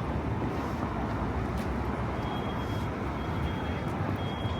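Steady rumble of city traffic. From about halfway through, a vehicle's reversing alarm beeps repeatedly.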